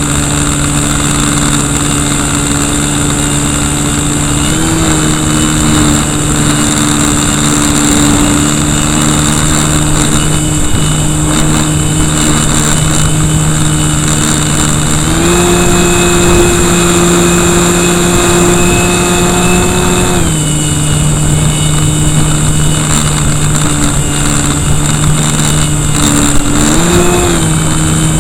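Brushless electric motor (KV1100, 11.1 V) and propeller of an RC Cessna, heard close up in flight as a steady whine. The pitch steps up briefly about five seconds in, holds higher for about five seconds in the middle, and rises once more near the end as the throttle is changed. Wind rushes over the microphone throughout.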